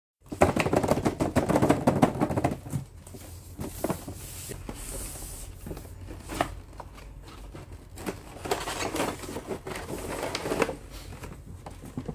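Cardboard toy box and clear plastic blister tray being handled and opened: crinkling and crackling of packaging with scattered knocks, busiest in the first couple of seconds and again near the end.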